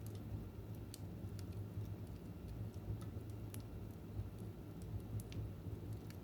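Wood fire crackling in a fireplace: irregular sharp snaps and pops, a few a second, over a low steady background hum.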